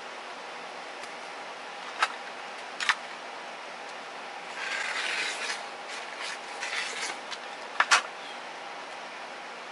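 Hands handling fabric offcuts and an acrylic quilting ruler on a cutting mat: a couple of sharp taps, then a stretch of fabric rustling, then a louder double tap, over a steady background hiss.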